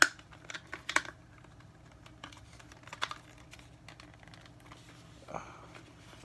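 Plastic clicks and knocks from a Star Wars Black Series Dewback action figure and its saddle being handled and pressed together: a sharp click at the start, another about a second later and one more about three seconds in.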